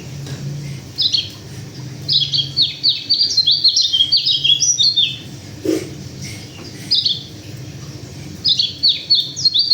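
A white-eye (pleci) from Sulawesi singing in bursts of rapid, high twittering notes: a short phrase, a longer run of about three seconds, then shorter phrases. A steady low hum sits underneath.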